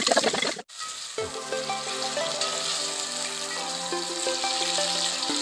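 Onions frying in hot oil, a loud crackling sizzle that cuts off suddenly just over half a second in. Background music with held notes follows, with a steady sizzling hiss beneath it.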